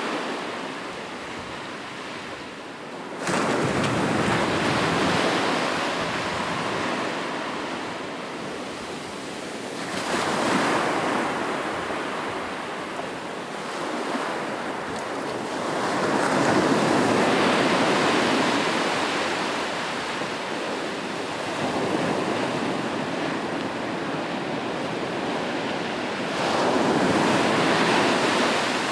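Sea waves rolling in and breaking: a rushing hiss that swells and fades in surges every six or seven seconds, the sharpest break coming about three seconds in.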